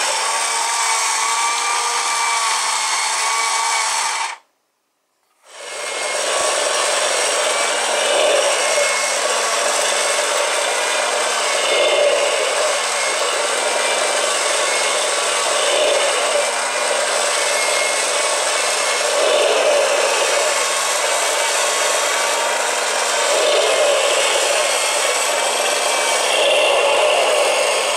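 Motorized 1:4 scale plastic model of a Porsche flat-six boxer engine running: its small electric motor and plastic gears drive the pistons, crankshaft and valvetrain with a steady whirring, rubbing rattle of plastic parts. The sound cuts out for about a second a little way in, then carries on, swelling gently every few seconds.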